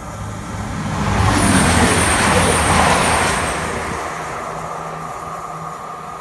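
CrossCountry Voyager diesel multiple unit passing: a low underfloor-engine drone and the rush of wheels on rail build to a peak a second or two in, then fade as the train draws away.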